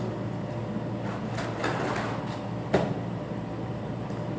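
Pink hard-plastic toy projector lamp being handled and set down on a table: a few light plastic clicks and knocks, the sharpest a little under three seconds in.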